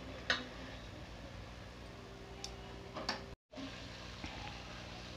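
Chicken pieces frying quietly in an aluminium pot, a faint steady sizzle with a few light ticks of a steel spoon against the pot. The sound cuts out for an instant about three and a half seconds in.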